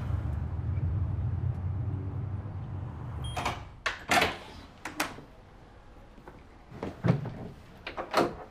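Low rumble of a moving car heard inside the cabin, fading out about three seconds in. Then a series of sharp clicks and knocks from a door handle and latch as a room door is opened.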